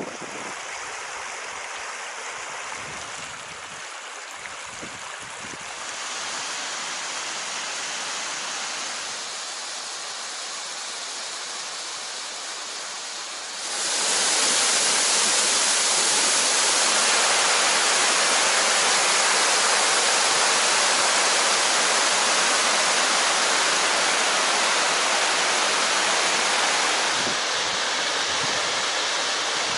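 Steady rush of running water from a shallow rocky creek; about halfway through the louder, fuller sound of a waterfall pouring over rock ledges takes over, easing slightly near the end.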